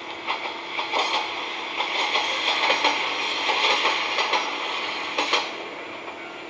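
A diesel railcar passing, its wheels clattering over the rail joints, heard as the soundtrack of train footage played back in a room. The clatter builds, is busiest midway, and dies away about five seconds in as the train moves off.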